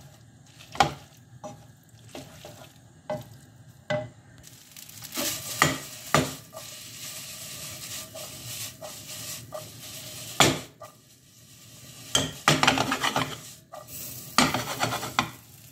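Spaghetti and asparagus being stirred and tossed in a non-stick frying pan in hot oil: a utensil knocks and scrapes against the pan while the pasta sizzles. The sizzling starts a few seconds in, and there are louder bursts of tossing near the end.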